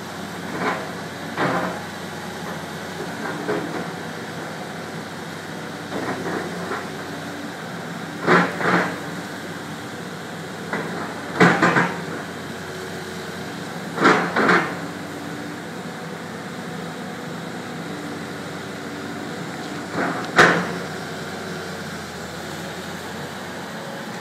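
Caterpillar hydraulic excavator's diesel engine running steadily, with a string of sharp clanks and knocks, often in pairs a few seconds apart, as its bucket digs at rocks and debris in the flooded river.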